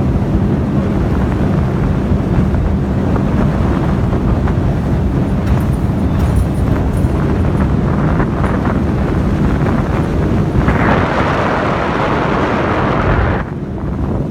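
Heavy wind buffeting the microphone on a 24-foot catamaran boat running at speed, over a steady low rumble of the boat and water. About eleven seconds in, a louder rush of noise comes in for a few seconds, then briefly drops away.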